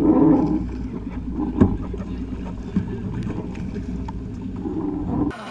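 Water sloshing and splashing against a fishing boat's hull over the boat's low, steady engine rumble, with wind on the microphone. A few sharp knocks come through, the loudest about a second and a half in, and the sound cuts off suddenly near the end.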